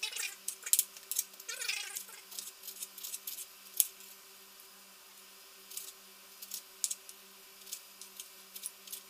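Kitchen knife chopping onion and tomato on a wooden cutting board: irregular sharp knocks, busier in the first two seconds and sparser after. A brief squeaky pitched sound comes about one and a half seconds in.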